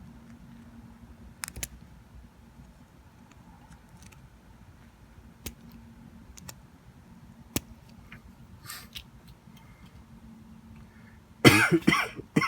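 A few sharp clicks and snips of wire cutters cutting the axle mount of a small die-cast toy car, over a low steady hum. Near the end a loud cough.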